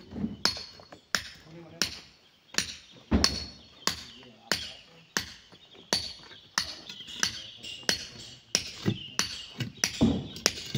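Hand hammers striking stone as two men break up rock, a steady run of sharp clinks with a short metallic ring, about one and a half a second and unevenly spaced as the two men's blows fall between each other.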